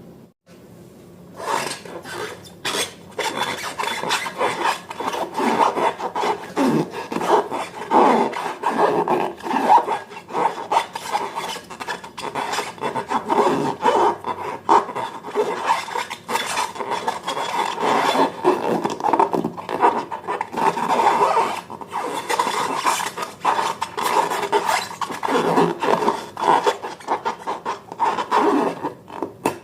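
Slime being worked by hand: continuous irregular rubbing and scraping with many quick strokes, starting about a second and a half in.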